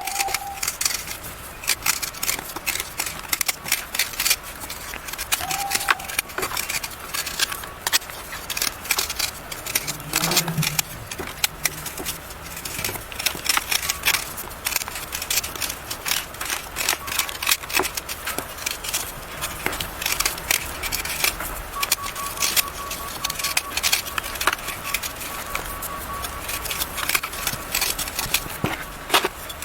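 Molded blocks of yellow gym chalk being crushed and crumbled, a dense run of crunching and crackling.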